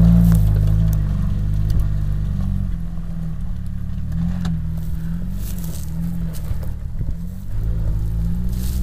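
Jeep Wrangler TJ engine revving up and down as the Jeep crawls up a muddy, rutted gully. It is loudest in the first second, then quieter as the Jeep pulls away.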